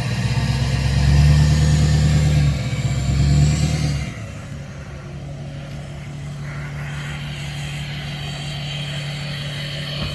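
An engine revs loudly in two surges for about four seconds, then drops suddenly to a steady low running drone.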